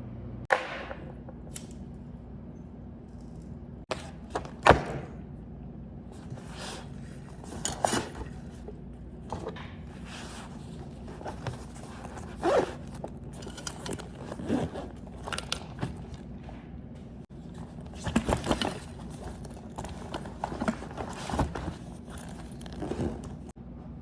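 Handling noises: a string of irregular knocks, clicks and scrapes as small objects are picked up and set down, over a steady low hum.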